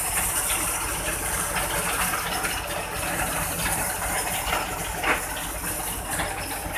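A heavy tow truck's engine running under a steady rushing hiss, with one short sharp sound about five seconds in.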